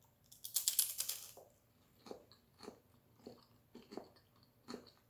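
A loud crunching bite into crunchy food close to the microphone, followed by steady open chewing, about two chews a second.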